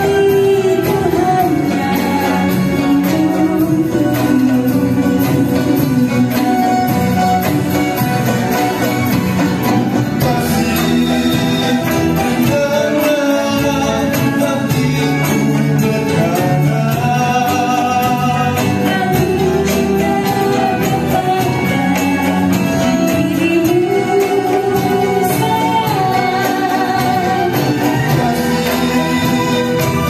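Live band playing with a sung vocal through a PA: a woman sings first, then a man sings, over a small ensemble of oud, cello, violins, guitar, keyboard, drum kit and conga.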